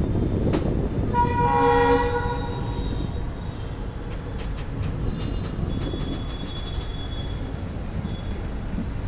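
A train running slowly with a steady rumble and scattered rail clicks. A train horn sounds once, for about a second, a little over a second in.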